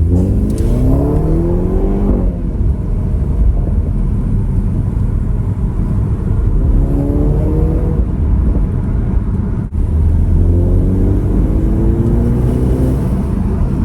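BMW 320i xDrive engine accelerating hard through the gears. The engine note climbs in pitch three times, with a brief drop in level at a gear change near ten seconds.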